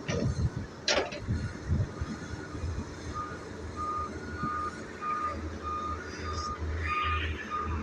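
Heavy machine's engine running under a reversing alarm beeping steadily about twice a second, with a couple of sharp metallic knocks in the first second.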